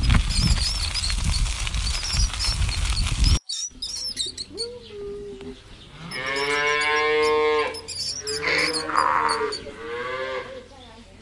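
Birds chirping over a loud, low rumble that cuts off about three seconds in. Then cattle mooing: three or four long moos, the longest and loudest a little past the middle.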